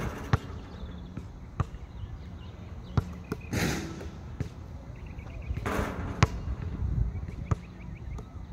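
Basketball bouncing on an asphalt court: about seven sharp thuds, irregularly spaced, plus two short rushing noises over a steady low rumble.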